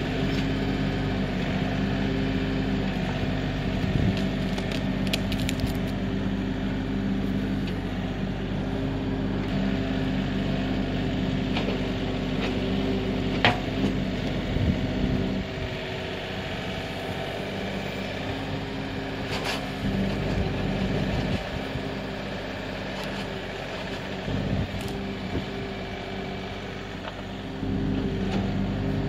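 Kioti NX6010 compact tractor's diesel engine running steadily under working load. It eases off about halfway through and comes back up near the end, with a few sharp cracks along the way.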